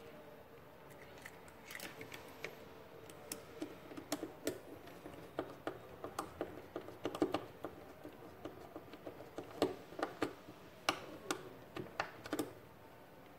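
Irregular small clicks and taps from handling a plastic pushbutton contact block while a screwdriver fastens a control wire into its terminal screw.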